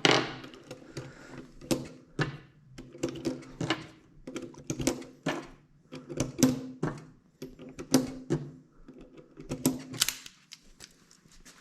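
Firearm being handled and loaded: a long run of irregular metallic clicks, the sound of cartridges and gun parts being worked, with no shot fired.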